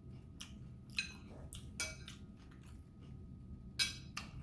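Eating sounds: about half a dozen short clicks and clinks of utensils against dishes, the loudest near the end.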